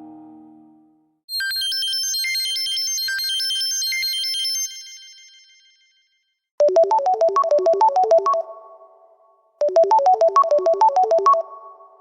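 Tizen OS phone ringtones and notification tones played one after another. A lower tone dies away in the first second, then a short, high, fast chiming melody plays, followed by a lower, quick rippling ringtone phrase that plays twice.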